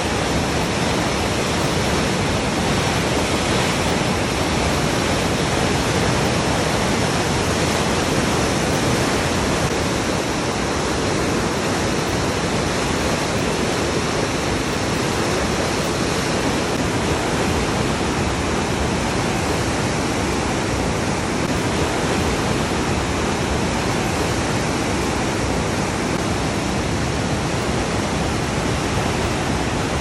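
Whitewater of a large river forced through a narrow rock gorge, a steady, unbroken rush of water.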